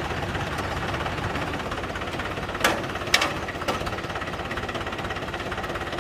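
Mahindra tractor diesel engine running steadily with a rapid, even chugging. Three sharp clicks come near the middle.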